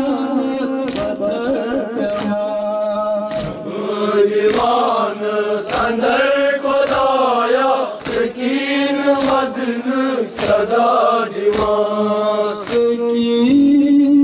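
Men's voices chanting a mourning lament (noha) in unison, with the steady beat of open hands striking chests (matam) sounding through it.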